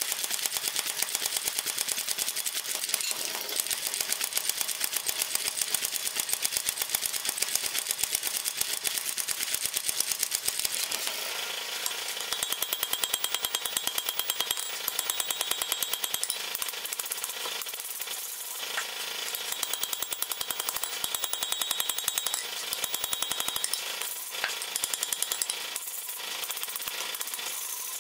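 A mechanical power hammer strikes a red-hot iron bar with rapid, even blows for about the first eleven seconds. After that come hand-hammer blows on the anvil, ringing, with short pauses between runs.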